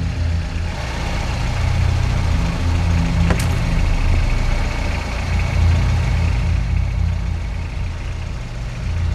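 Minivan engine running as the van drives along a rough forest track, a steady low rumble under a wide noise of tyres and movement. A single short, sharp click about three seconds in.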